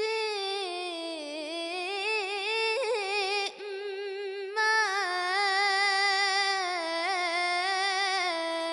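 A girl singing an Arabic ballad solo, with no instruments, into a handheld microphone. She winds the note through ornamented runs with vibrato, pauses briefly for breath about three and a half seconds in, then sustains a long final note.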